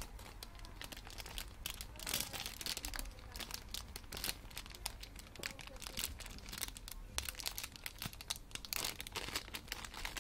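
Clear plastic bags around squishy toys crinkling and rustling as hands rummage through a pile of them, in irregular crackles.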